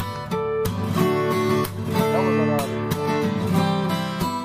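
Background music: a strummed acoustic guitar.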